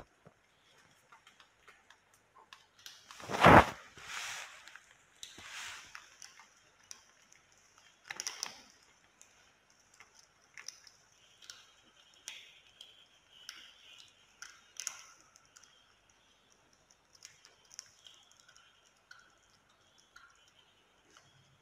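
Scattered light clicks and taps, with one much louder knock about three and a half seconds in and a few soft rustles.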